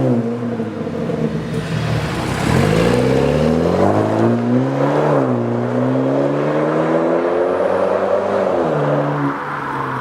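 BMW 428i with an aftermarket Switzer exhaust system: the exhaust note of its 2.0-litre turbocharged four-cylinder rises and falls with engine speed under way. The pitch drops and climbs again a couple of times, like gear changes.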